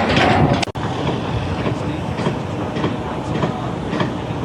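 Loud mechanical rumble with a regular clatter, cut off for an instant just under a second in.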